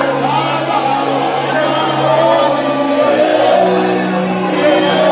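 Music with a singing voice over long held low notes; the low note shifts about three and a half seconds in.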